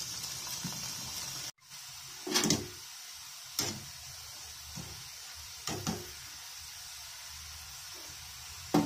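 Pieces of nimki dough deep-frying in hot oil, a steady sizzle. After a sudden cut about a second and a half in, a wire skimmer stirs the frying pieces, knocking against the pan four times over the next few seconds.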